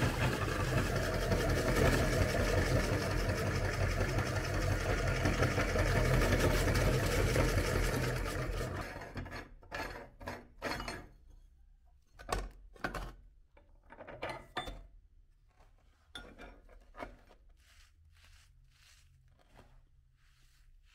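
Belt-driven electric meat grinder running steadily with a low hum as it grinds hard cookies into crumbs, then winding down and stopping about nine seconds in. After that, a string of short knocks and rustles from handling the grinder's parts and the crumbs.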